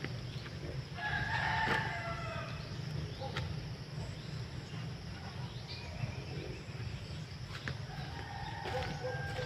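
Rooster crowing, a long crow about a second in and a fainter one near the end.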